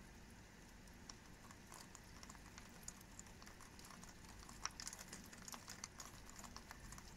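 Raindrops pattering on glass: faint, irregular light ticks that come thicker from about halfway through.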